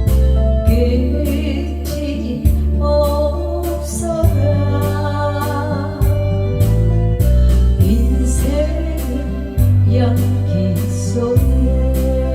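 A solo voice singing a slow song over electronic keyboard accompaniment, with a steady bass and an even beat.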